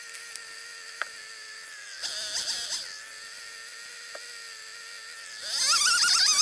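Chainsaw idling steadily, with a brief rise about two seconds in. Near the end it is revved up loudly, the pitch climbing, as the chain starts cutting through a tree trunk.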